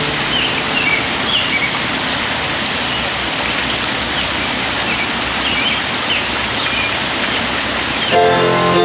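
A steady, even hiss with birds chirping now and then over it. Music comes in near the end.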